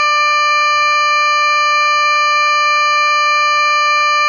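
Sifa (driver vigilance) alarm from the sound decoder of a Märklin 39187 BR 218 H0 model diesel locomotive, played through the model's small loudspeaker: one loud, steady warning tone at a single pitch.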